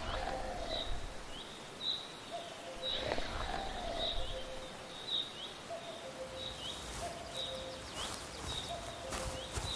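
Forest ambience with birds chirping: short high chirps repeat about once a second over a steady outdoor background. Two brief louder sounds stand out, at the start and about three seconds in.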